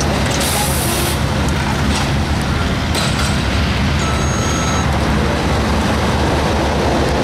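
Diesel engine of a Komatsu mini excavator running steadily close by as it works. A short hiss comes about half a second in, and a brief thin whine about four seconds in.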